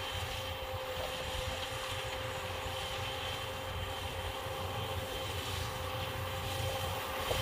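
Rice combine harvester working in the field: its engine and threshing machinery run steadily, a constant whine over a low rumble.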